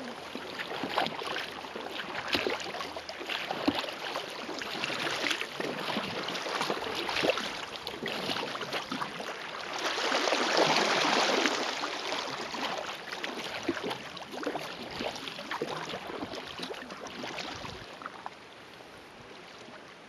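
Canoe paddle strokes splashing and river water rushing along the hull of a Dagger Ocoee whitewater open canoe. The water is loudest for a couple of seconds about halfway through, in the rough water below a small fall, and quieter near the end.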